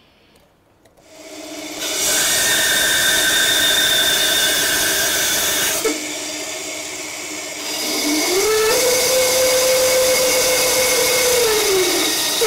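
A bandsaw starts up and runs steadily, then cuts through a wooden saw-handle blank; about two-thirds through, a hum rises in pitch, holds, and drops back near the end.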